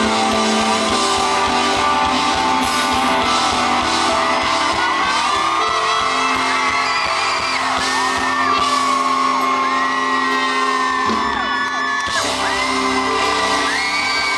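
A live band holds sustained closing chords while fans scream, with long high-pitched cries that rise, hold and fall again and again over the music.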